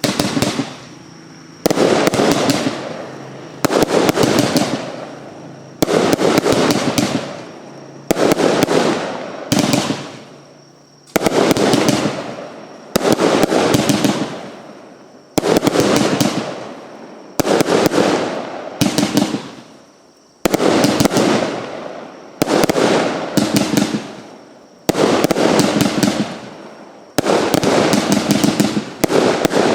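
Big Rhino 04494 firework cake firing shot after shot, about one every two seconds. Each shot is a sharp bang followed by a crackling tail that dies away, and the shots come a little faster near the end.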